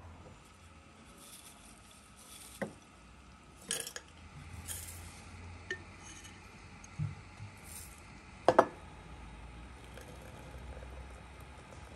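Glass and china tea things clinking and knocking as they are handled on a table: a few separate sharp clinks, the loudest a quick double knock about eight and a half seconds in.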